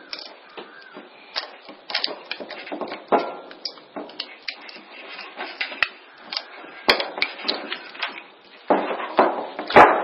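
Flat-tip screwdriver scraping and clicking against a microwave oven transformer's laminated steel core and winding while prying out the small winding: a run of irregular clicks and scrapes, with a loud knock near the end.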